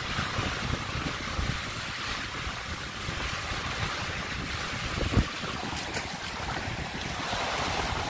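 Small waves breaking and washing up a sandy shore, a steady surf hiss, with wind buffeting the microphone. A single thump about five seconds in.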